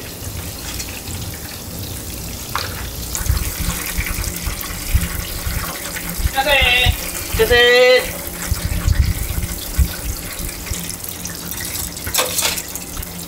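Breaded shrimp and other food frying in a commercial deep fryer, a steady oil sizzle. A voice calls out twice briefly about halfway through.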